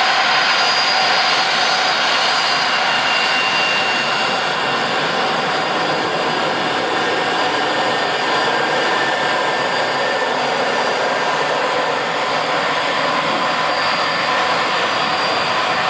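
Boeing 767-300 airliner's jet engines running at low thrust as it taxis close by: a steady whine of several high tones over a broad rush.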